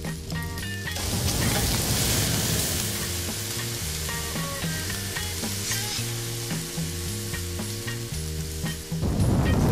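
Steak sizzling on a flame grill, a dense crackling hiss that swells about a second in, over background music.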